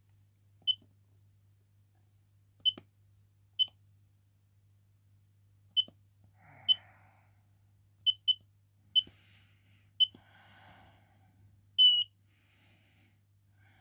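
Handheld digital battery tester beeping as its keys are pressed to set up and run a test on a motorcycle AGM battery: about ten short, identical high beeps at uneven intervals, then one longer beep near the end. A steady low mains hum runs underneath, with faint handling noise between beeps.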